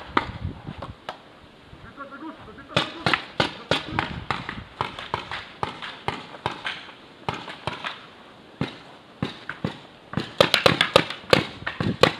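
Paintball markers firing in strings of sharp pops, with a dense run of shots about ten seconds in.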